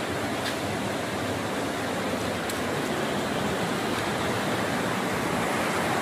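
Rushing water of a rocky stream tumbling over small cascades: a steady, even rush.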